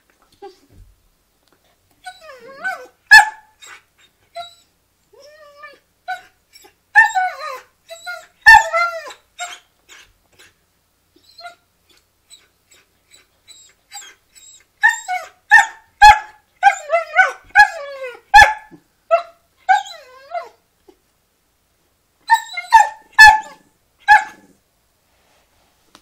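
Dogs squabbling over a cow hoof chew, yipping and barking in short runs, with a few sharper single barks. The calls come in four bursts separated by quiet spells.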